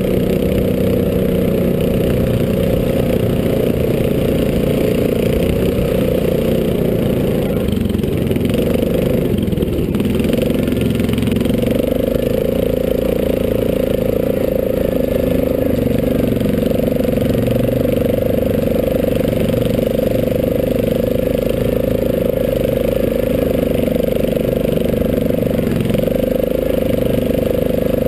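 Yamaha Grizzly ATV engine running steadily under way, easing off briefly about a third of the way in and then picking back up to a steady note.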